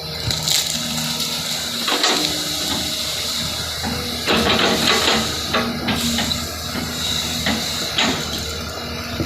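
Backhoe loader working: its engine runs steadily under hissing, with several sharp knocks as it digs.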